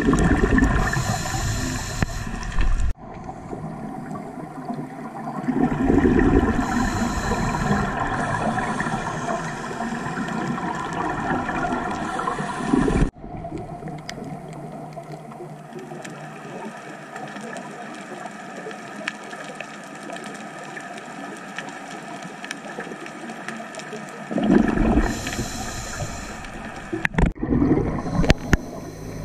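Scuba regulator breathing recorded underwater: three long rushes of exhaled bubbles, the middle one the longest, with quieter spells of inhaling in between. Under it runs a steady underwater hum.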